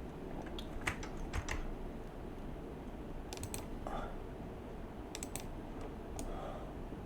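Scattered clicks of a computer keyboard and mouse, some coming in quick runs of two or three, over a steady low background noise.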